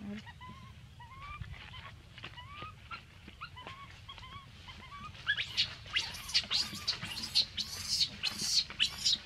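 Baby macaque crying: short high calls, each rising then falling, repeated several times a second. About five seconds in, a louder run of evenly spaced scratchy strokes, about three a second, takes over.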